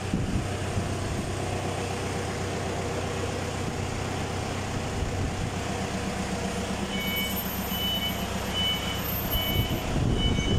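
Forklift engine running steadily, with its reversing alarm starting about seven seconds in and beeping about one and a half times a second.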